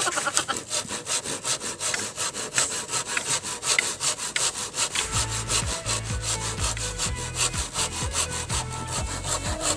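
Handsaw cutting through a green bamboo pole with quick, even back-and-forth strokes.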